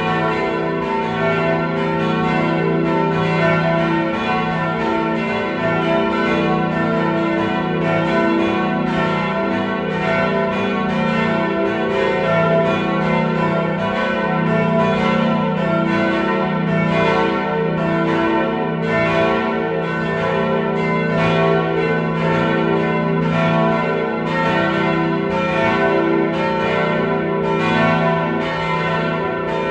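A full peal of four swinging church bells tuned e, f♯, a and b, the oldest cast in 1475. Their strikes overlap in a continuous, steady ringing, with the hum of the big bells sustained underneath.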